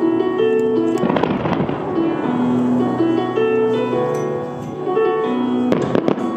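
Fireworks shells going off over music with long held notes: a sharp bang about a second in, then a quick cluster of bangs near the end as shells open in the sky.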